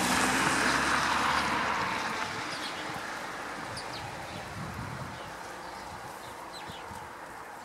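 Noise of a passing vehicle fading away over the first two or three seconds, followed by a few faint, short, high bird chirps.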